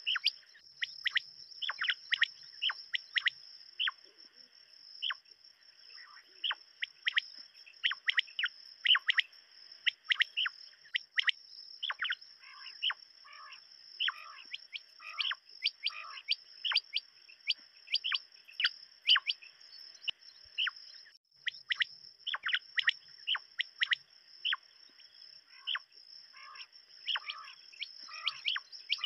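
Quails calling: a rapid stream of short, sharp chirping calls, several a second, over a steady high-pitched buzz that breaks off briefly about two-thirds of the way through.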